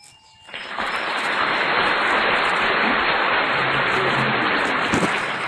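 Applause sound effect: a crowd clapping that starts abruptly about half a second in and then runs on steadily.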